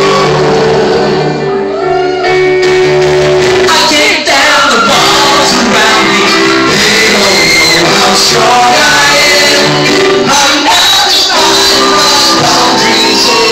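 Live band playing a musical-theatre rock song in concert, with voices singing over it.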